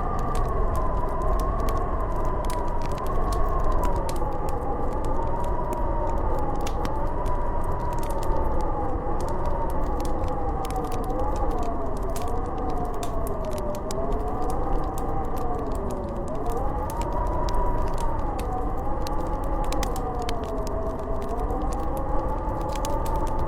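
Howling blizzard wind, a wavering whistle that slowly rises and falls in pitch over a low rumble, with frequent small crackles and pops of a wood fire.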